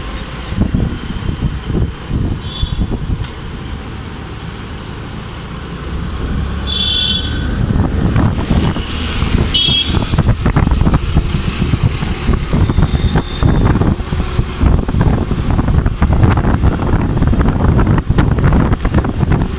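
Road traffic heard from a moving vehicle, with wind rumbling on the microphone that grows louder about a third of the way in. Several short, high vehicle horn toots sound in the first half.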